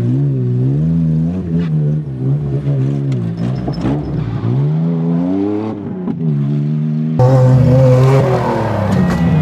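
Off-road race trucks' engines revving hard as they claw through deep mud, the pitch rising and falling again and again with the throttle. About seven seconds in, the sound cuts abruptly to a louder, closer engine.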